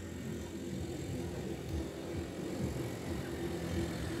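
A vehicle engine running steadily: a continuous low rumble with no sudden sounds.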